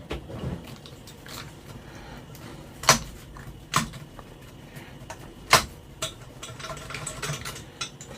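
Sharp clicks and knocks of small metal tools and parts being handled while working on an amplifier, three louder ones about three, four and five and a half seconds in, over a faint steady fan noise.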